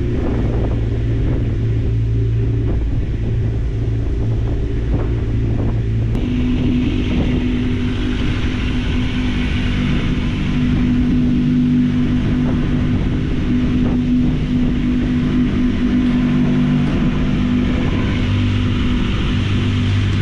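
Motorcycle engine running at steady revs. Its pitch steps up about six seconds in, holds there, and drops back low near the end.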